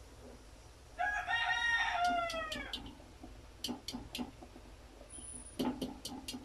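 A rooster crows once about a second in, a call of nearly two seconds whose pitch falls away at the end. Around it come several sharp clinks of a wire whisk against a stainless steel pot.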